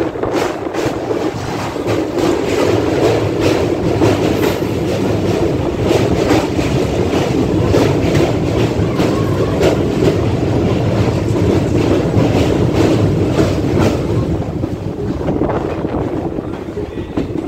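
ICF DEMU train running at speed over a steel truss bridge, heard at an open carriage window: a steady rumble with a quick, irregular run of wheel clicks over the rail joints. The clicks thin out near the end.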